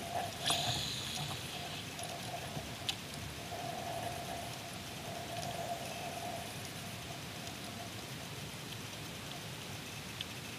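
A baitcasting reel's spool whirring briefly as a topwater spook lure is cast, about half a second in. Then a faint steady hiss of wind and water while the line is reeled in.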